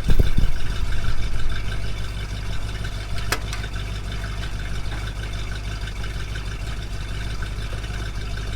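Buick Riviera's big-block V8 idling steadily on its stock, quiet exhaust, with a low rumble. There is a thump right at the start and a single click about three seconds in.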